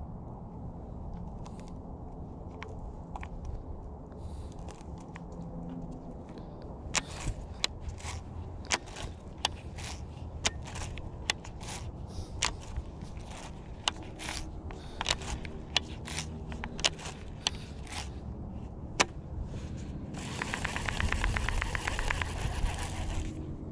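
Baitcasting reel and line being handled while a backlash is picked out: scattered sharp clicks and ticks. About twenty seconds in, the reel is cranked with a fast, even ticking whir for a few seconds.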